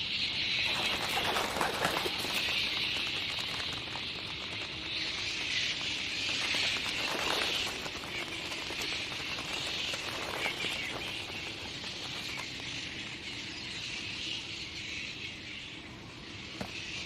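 A steady chirring hiss, insect-like and high-pitched, that swells and fades slowly, with a few faint scattered clicks.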